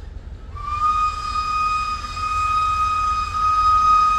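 Steam locomotive whistle blowing one long, steady note that starts about half a second in, sliding up slightly as it opens.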